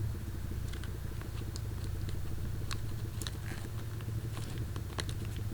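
Scattered light clicks and ticks of a small plastic coil pack connector and its seal being handled and pressed into place, over a steady low hum.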